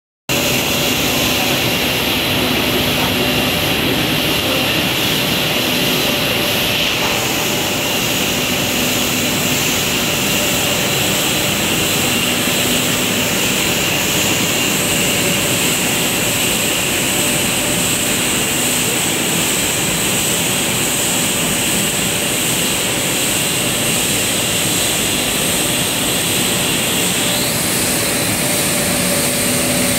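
Paper PE extrusion coating machine running: a loud, steady mechanical drone with several high, steady whining tones. One of the high tones shifts near the end.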